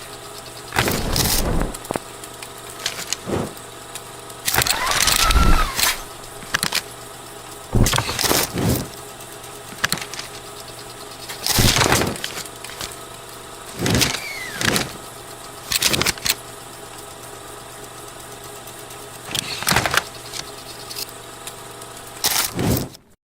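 Film burn transition sound effects: a steady mechanical hum, like a running film projector, with short loud whooshing bursts every one to three seconds, some with a sweeping pitch.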